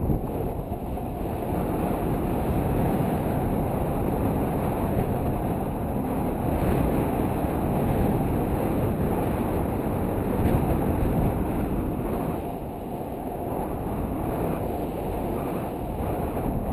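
Wind rushing over the microphone of a handheld camera during a tandem paraglider flight: a steady low rush, easing slightly for a moment around two-thirds of the way through.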